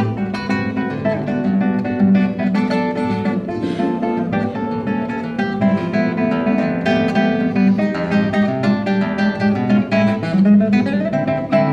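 Acoustic guitar playing an instrumental piece: quick plucked notes that ring on over a moving bass line.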